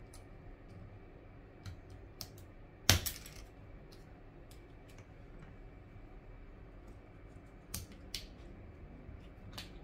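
Small sharp clicks and taps of a metal pry tool and a Samsung Galaxy A20e's internal brackets being unclipped and handled. The loudest is a click about three seconds in with a brief rattle after it, and a few lighter clicks come later.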